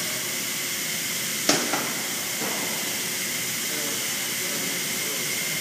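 Steady hiss of workshop background noise, with a sharp metallic clink of a tool against the motorcycle's exhaust about one and a half seconds in and a softer clink just after.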